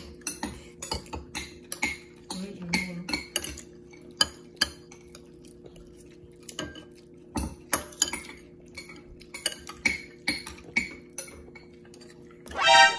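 A metal spoon scraping and clinking irregularly against a bowl of rice as a toddler scoops bites, with a brief louder high-pitched sound near the end.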